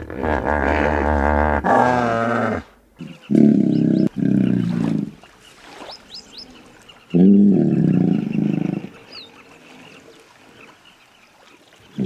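Hippopotamus calling: one long wavering bellow, then two deep honking grunts back to back, and a last honk a few seconds later.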